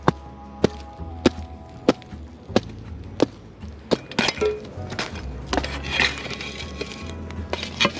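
Background music with a steady beat: a sharp percussive hit about every 0.6 seconds over a deep bass line and held notes.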